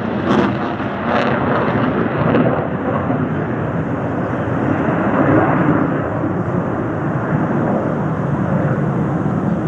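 Aircraft engine noise: a loud, steady rumble with no distinct tone.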